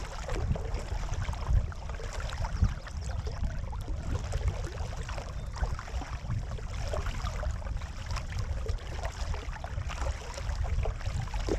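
Kayak paddles dipping and splashing and water rushing along the hull at the bow as the kayak glides through calm water. There are irregular small splashes over a low, steady rumble.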